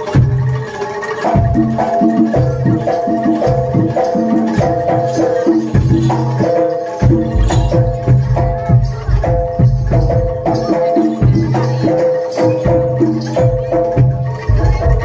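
Live jaranan dor music: a Javanese percussion ensemble playing a repeating melody of short pitched metal notes over steady deep drum beats.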